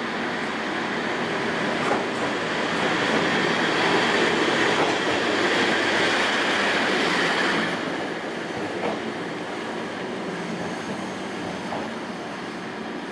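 Locomotive passing slowly along the platform: rumbling wheel and rail noise with a light squeal and a few rail-joint clicks, building to its loudest as it goes by and dropping off suddenly a little before halfway, leaving a lower steady noise.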